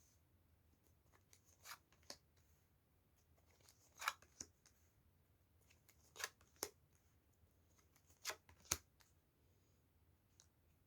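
Tarot cards being shuffled and handled on a table: four pairs of short, sharp card snaps about two seconds apart, with faint rustling between them.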